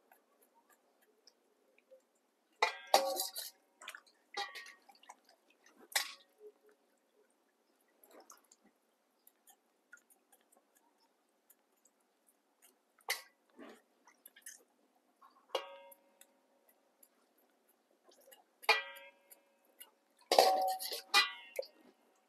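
Kitchenware clinking and knocking now and then, with some strikes ringing briefly, alongside dripping and splashing water. The busiest stretch comes near the end.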